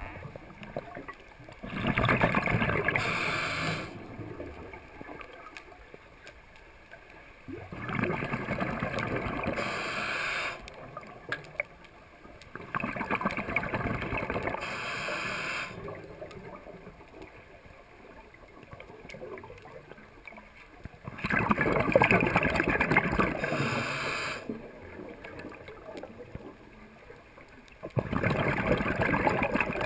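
Scuba diver breathing through a regulator underwater: bubbly exhalations lasting two to three seconds each, coming about every six seconds, with a quieter hiss between them.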